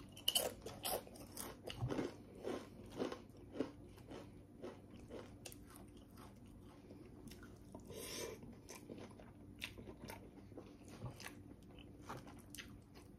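Close-up chewing of a mouthful from a Chipotle bowl, with crisp crunching clicks that come quickly for the first few seconds, then slower and fainter.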